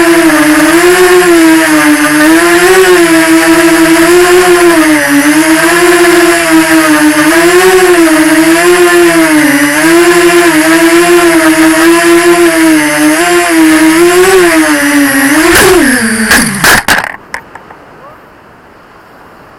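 FPV quadcopter's electric motors whining loudly, the pitch rising and falling as the throttle changes. About sixteen seconds in, the pitch drops sharply and the motors stop amid a few quick knocks, leaving only a faint hiss.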